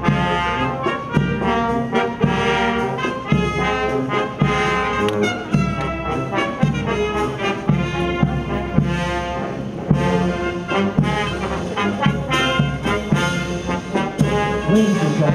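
Brass band playing a march with a steady beat.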